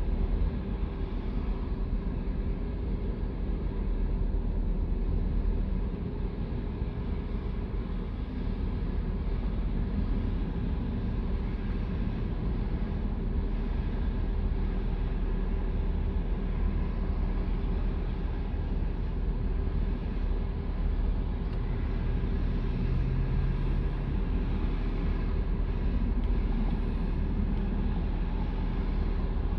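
Steady drone of a car's idling engine and air-conditioning fan, heard from inside the cabin.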